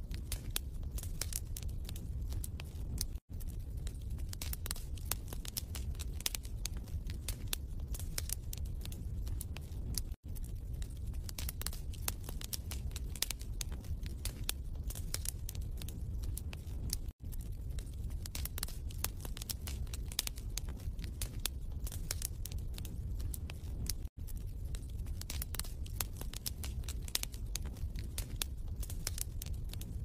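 Wood fire crackling in a fireplace: dense, irregular pops and snaps over a low rumble. It cuts out for an instant about every seven seconds, four times in all.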